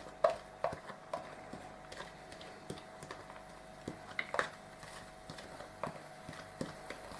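Irregular light taps and clicks of a utensil against a chopping board and frying pan as finely chopped onions are scraped into the pan, over a faint steady hum.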